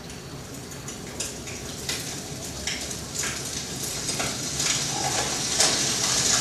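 Fire crackling sound effect played through loudspeakers: scattered crackles that build into a louder, denser crackling hiss over the last couple of seconds.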